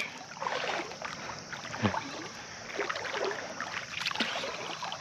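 Water lapping and sloshing close by at the surface, with scattered faint ticks, while a carp is played near the landing net.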